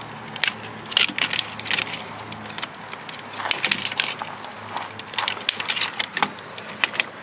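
Irregular clicks, snaps and rattles of plastic and metal parts as wires and a circuit board are pulled and pried out of a taken-apart UPS battery-backup unit with pliers.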